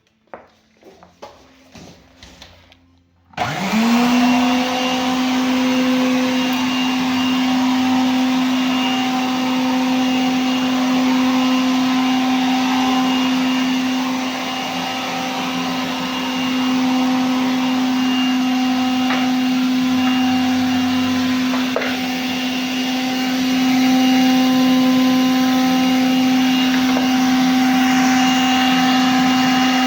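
A few light clicks of handling, then a little over three seconds in the Soviet Tsiklon-M floor vacuum cleaner's 600 W vortex motor switches on. It spins up within a second and then runs steadily with a loud, even whine over rushing air, dipping slightly in level a couple of times.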